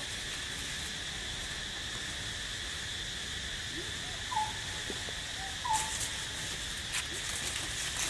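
Steady high-pitched drone of insects, with a few short chirps about halfway through.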